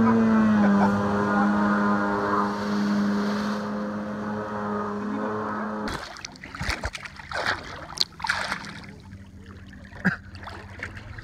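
Jet ski engine running steadily as the craft pulls away, fading with distance. About six seconds in it cuts to water sloshing and splashing close to the microphone, with a few sudden louder splashes.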